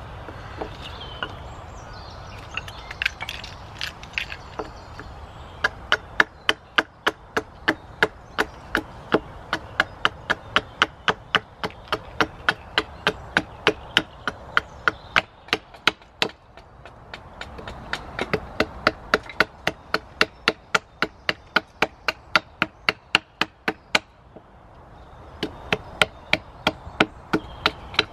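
Wood being chopped with a small axe in quick, light, evenly spaced strokes, about three a second. A few scattered knocks come first, then long runs of strokes with two short pauses.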